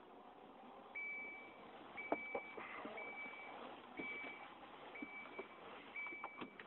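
An electronic warning beeper sounding six high half-second beeps, one every second, like a vehicle's reversing alarm, with a few sharp knocks.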